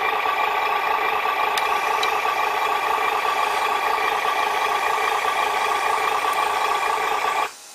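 Simulated truck engine sound from the HG P803A RC truck's onboard sound unit, playing steadily through its small speaker, then cutting off suddenly near the end.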